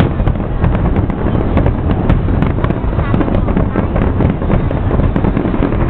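Fireworks display bursting in rapid, continuous succession: many sharp cracks and bangs over a steady low rumble of booms.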